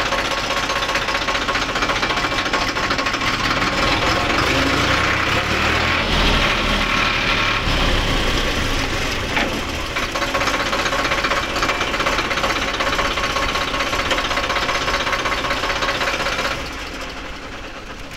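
Tractor diesel engine running steadily while the tractor is driven slowly, heard from the driver's seat. Near the end the engine sound drops and quietens.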